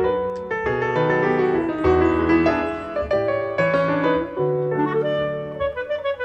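Instrumental background music led by piano, with held melody notes over it.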